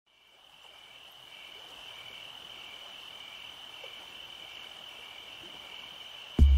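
A steady, high-pitched chorus of insects trilling, with a second trill pulsing just below it, fading in at the start. Music with a heavy bass beat cuts in at the very end.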